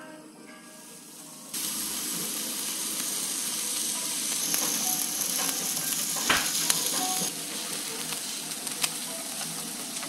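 Thick pork neck steak sizzling on a hot griddle pan. The sizzle starts abruptly about a second and a half in and then runs steadily, with a sharp click a little past the middle.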